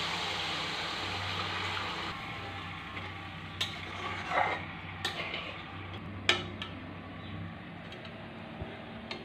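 Fried spice paste sizzling in a metal pan with freshly added water, the sizzle dying down about two seconds in. A metal spatula then stirs and knocks against the pan four or five times.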